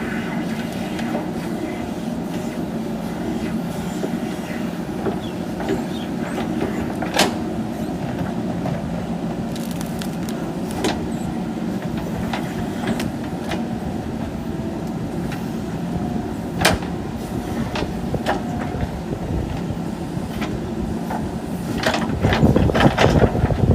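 JCB backhoe loader's diesel engine running steadily while working, with a few sharp knocks and a louder, rougher stretch near the end.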